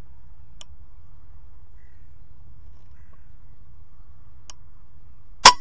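A .22 FX Crown pre-charged air rifle fires once, a single sharp crack about five and a half seconds in. Before the shot there is only a faint low rumble and a couple of soft ticks.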